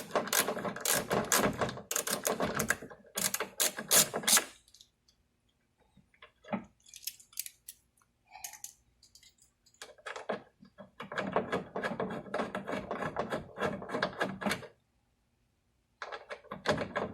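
Ratcheting hand tool clicking rapidly in two long runs, with a few scattered clicks between them, as deep-set screws are turned in slowly by hand.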